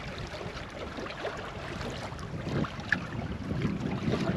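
Wind on the microphone and sea water washing around a small fishing boat, with a few faint ticks and one short high chirp about three seconds in.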